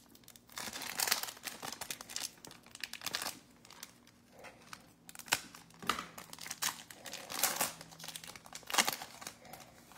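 Foil Donruss Elite football card pack wrapper crinkling in irregular crackly bursts as it is handled and torn open.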